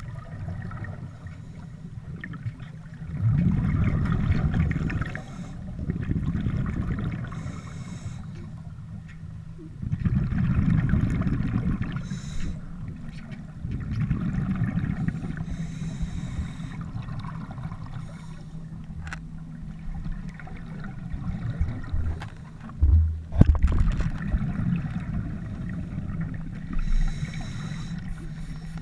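Scuba regulator breathing heard underwater: exhaled air rumbling and gurgling out as bubbles in surges every few seconds, over a steady low hum. A sharp knock sounds about two-thirds of the way through.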